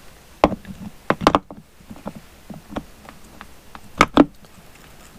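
Sharp metal clicks and knocks as the clutch outer housing of a Suzuki TS185 two-stroke engine is handled and slid onto its shaft in the crankcase, the loudest pair about four seconds in.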